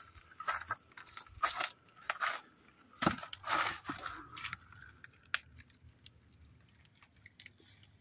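Irregular crunching and rustling of movement over loose stones and dry plants, busiest in the first half and dying away after about five seconds.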